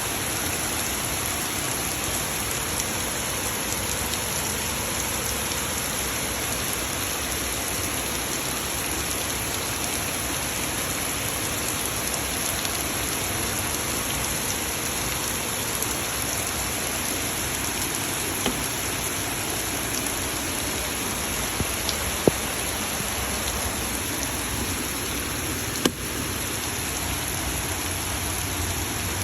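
Heavy rain falling steadily, an even hiss of rain on surfaces, with a couple of sharp clicks in the last third.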